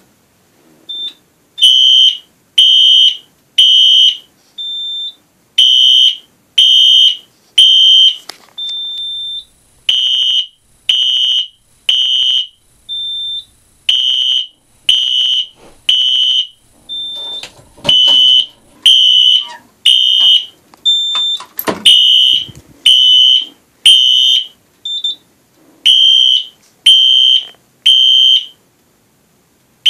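Wheelock Exceder electronic fire alarm horn sounding the code-3 temporal evacuation pattern: three half-second horn blasts, a pause, then again, repeating steadily. A shorter, fainter, higher beep falls in most of the pauses.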